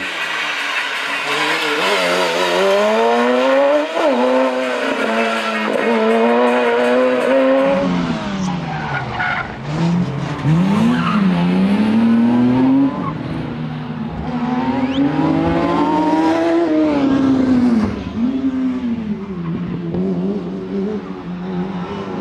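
Suzuki slalom car with a ZX-12R motorcycle engine driven hard through a cone course. The engine revs high, its pitch climbing and dropping again and again as the car accelerates and slows between the cones, with tyres squealing as it slides.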